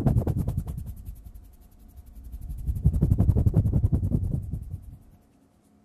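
Fingertips rubbing and plucking in the air right at a handheld recorder's microphones: a fast stream of soft clicks and rustle, heavy in low rumble from the closeness to the mics. It comes in two spells, the second fading out about a second before the end.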